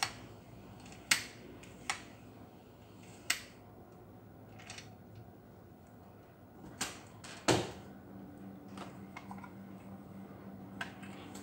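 Irregular sharp clicks and knocks from a Total cordless circular saw being handled and adjusted by hand, its metal base plate and plastic body knocking, about seven times over several seconds.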